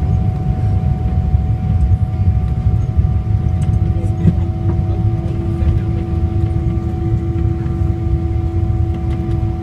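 Cabin noise of a Boeing 777 rolling on the ground after landing: a steady low rumble with a constant hum over it, and a second steady hum joining about four seconds in.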